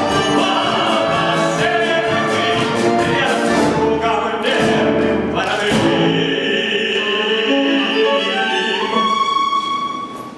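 A male singer performing an operetta song in an operatic style, accompanied by an orchestra with strings, to a rhythmic beat. About six seconds in, he holds one long note, which fades just before the end.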